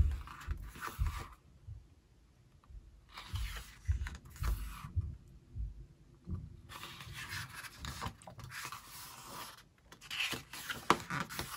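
Paper pages of an album photobook being turned by hand, rustling and sliding in about four bursts with quiet gaps between, and a few sharp page flicks near the end.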